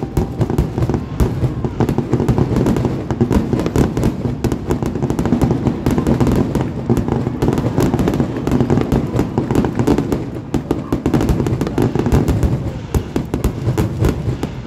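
Aerial fireworks shells bursting in a dense, near-continuous barrage, many bangs in quick succession, easing slightly about two-thirds of the way through.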